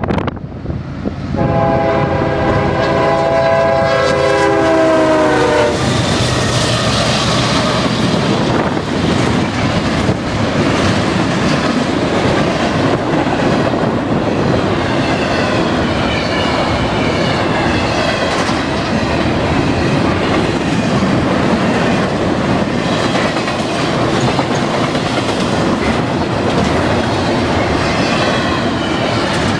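CSX diesel freight locomotive sounding its multi-tone air horn for the grade crossing for about four seconds, its pitch dropping as it ends. Then the train passes at speed: continuous rumble and rolling noise of double-stack intermodal cars, with the wheels clattering over the rail joints.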